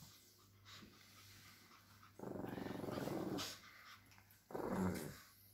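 Lhasa Apso puppy growling twice: a longer growl about two seconds in, then a shorter one near the end.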